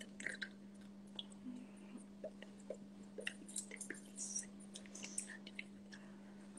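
Faint mouth clicks and short whispered breaths from a person silently mouthing words while signing, scattered and irregular over a steady low hum.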